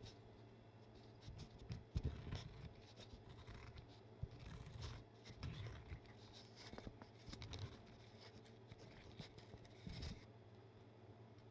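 Spoon scraping the seeds and soft core out of a halved white melon (shirouri): quiet, irregular scrapes and small clicks, the loudest about two seconds in.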